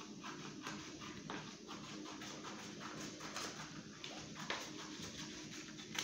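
Scissors cutting a sheet of brown paper, a run of short snips at about two a second with paper rustling.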